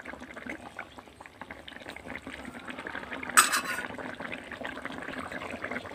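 A thick curry of dried jute leaves and fish bubbling at a simmer in a pot, with a steady crackle of small pops. A short, sharp clatter about three and a half seconds in.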